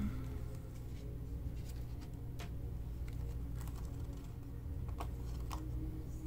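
Tarot cards being handled and laid on a table: a handful of light, scattered clicks and taps over a steady low hum.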